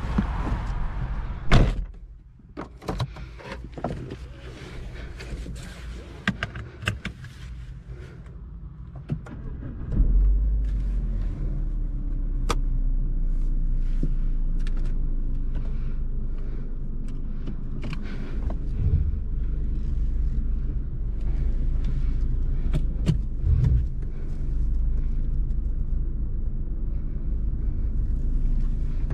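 A car door shuts about a second and a half in, followed by scattered clicks and rustling in the cabin. About ten seconds in, the 2006 BMW 118i's 2.0-litre four-cylinder petrol engine starts and settles into a steady idle, its pitch easing down slightly, heard from inside the cabin.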